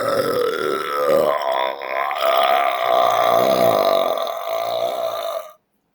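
A man's single long, drawn-out belch, low and wavering in pitch, that stops about five and a half seconds in.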